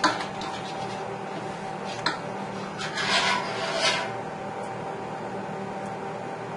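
Wire whisk knocking and scraping against the sides of a stainless steel stockpot: a sharp knock about two seconds in, then a few short scraping strokes, over a steady background hum.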